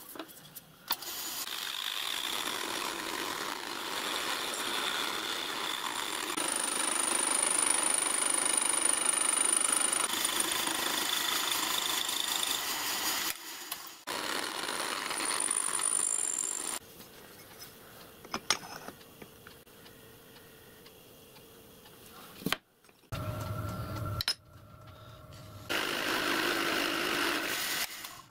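Vertical milling machine cutting a steel plate: a steady, loud metal-cutting noise with a high whine over it, broken off and resumed several times, with a quieter stretch of the machine running in the middle and a short low hum shortly before the cutting noise returns near the end.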